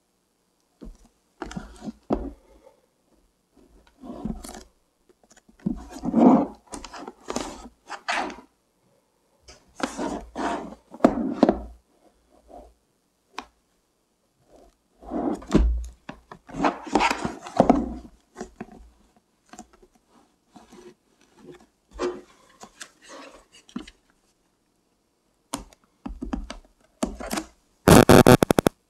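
A shrink-wrapped cardboard box handled on a wooden table: rubbing and crinkling of the plastic wrap and soft thuds of the box on the wood, in bursts with short pauses. Near the end comes a quick run of sharp clicks.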